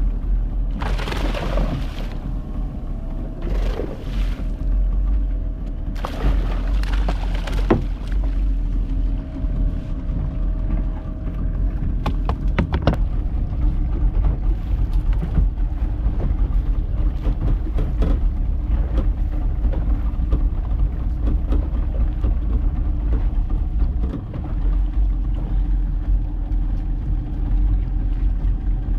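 Small fishing boat's motor running with a steady low rumble, with wind on the microphone. There are several louder rushing gusts in the first eight seconds.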